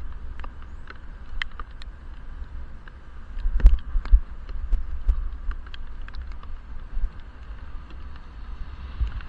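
Muffled wind rumble and ride vibration picked up by a helmet-mounted action camera sealed in its waterproof case while cycling, with scattered light ticks and a louder stretch of low thumps about a third of the way in.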